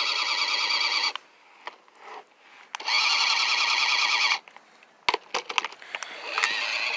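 Toy RC car's small electric motor whirring at a steady high pitch in two bursts, the first stopping about a second in and the second running from about three seconds in for a second and a half. A few clicks and rattles follow near the end.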